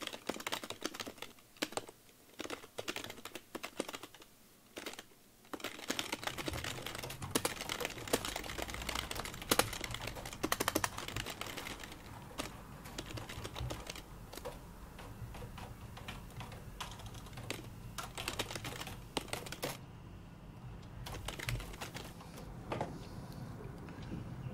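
Dense, irregular clicking of keys being typed, with a low hum joining about six seconds in.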